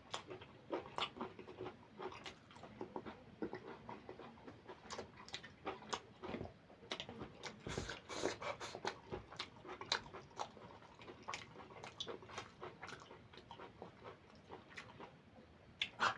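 Close-up chewing and wet mouth sounds of a person eating curry with rice: irregular short smacks and clicks, several a second.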